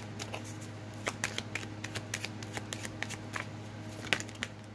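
Tarot deck being shuffled overhand in the hands: a quick, irregular patter of card clicks and flicks, over a faint steady low hum.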